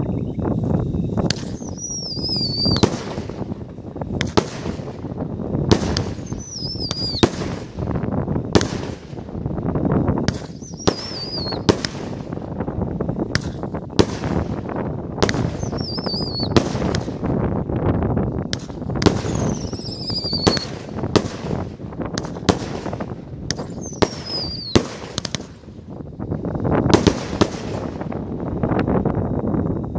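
A 19-shot, 1.2-inch firework cake firing in sequence: sharp launch and burst bangs about once a second, with whistling shots mixed in. Six whistles each fall slightly in pitch with a warble.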